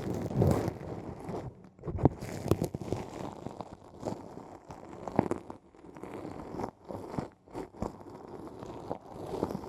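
Close-miked ear-cleaning ASMR: an ear pick scraping and crackling inside an ear, in irregular crunchy strokes with sharp clicks about two seconds and five seconds in.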